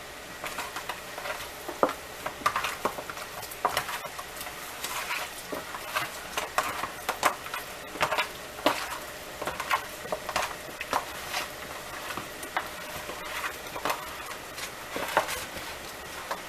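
Seasoned raw chicken wings being mixed: irregular wet slaps, scrapes and clicks against the container, several a second.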